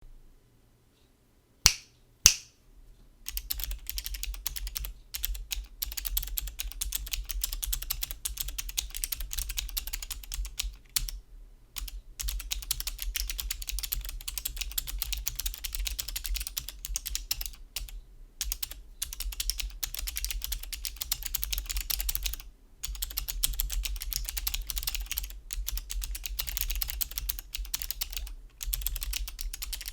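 Fast typing on an Alpha28 28-key mechanical keyboard with magnetic Alps switches and Apple keycaps: a dense, continuous clatter of keystrokes with short pauses, given a reverberant ring by the hollow acrylic sandwich case. Two sharp single clicks come near two seconds in, and steady typing starts about a second later.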